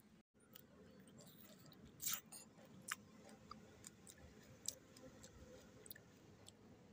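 Faint sounds of a man chewing a raw tomato, with scattered small clicks; the loudest come about two and three seconds in.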